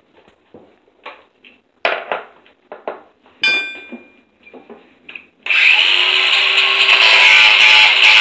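A few small knocks and clicks and a short metallic clink as parts are handled, then a power tool starts about five and a half seconds in and runs steadily with a loud high-pitched whine.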